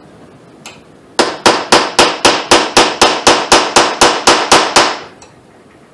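A hammer tapping a steel roll pin into an AR-15 gas block, about fifteen quick, even metallic taps at roughly four a second, which stop about a second before the end. The roll pin is being driven flush to hold the gas tube in place.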